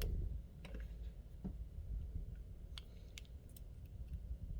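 Small irregular clicks and rattles of a lock and metal lock picks being handled, with a low bump right at the start.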